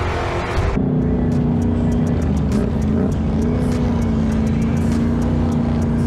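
ATV engine running at steady revs, its drone holding one pitch after a loud rushing noise in the first second.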